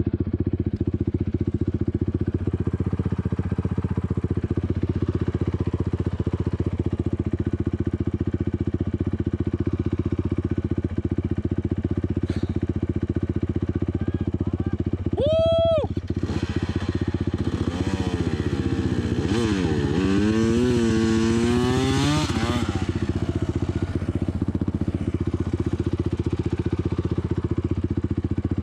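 Off-road vehicle engine running steadily under way. About halfway through, a second engine revs up and down several times.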